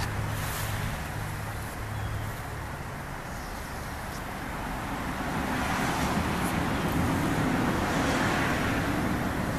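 Road traffic passing: a low engine hum fades in the first second or so, then a vehicle's noise swells and goes by over the last few seconds.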